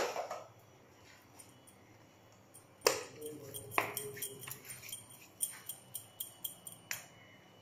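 Kitchen handling sounds: two knocks with a short ring, as bowls are moved on the counter, then a quick run of light metallic clinks, several a second, from metal bangles on a working wrist.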